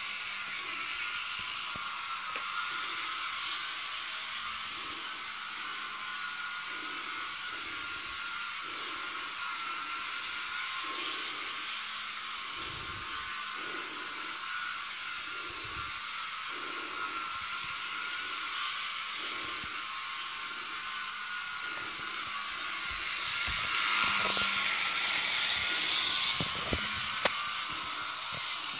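Jouef HO model locomotive's small electric motor whining steadily as the freight train runs round the track, with a soft regular clicking about once a second. It grows louder about 24 seconds in as the train comes close, with a couple of sharp clicks near the end. The motor has just had its routine servicing.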